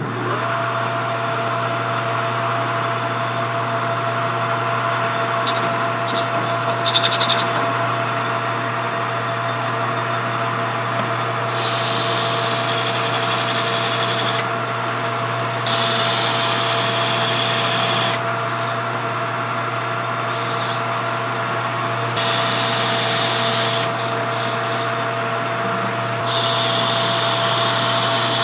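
Metal lathe running steadily while a boring bar rough-bores a bronze hub blank. The cutting adds a hiss that comes and goes in stretches of a few seconds, and there are a few light clicks about six to seven seconds in.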